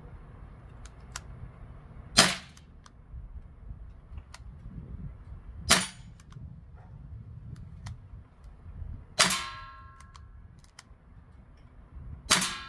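Daisy Powerline 415 CO2 BB pistol fired four times, about three to three and a half seconds apart, each shot a sharp pop. The third and fourth shots are followed by a brief ringing tone.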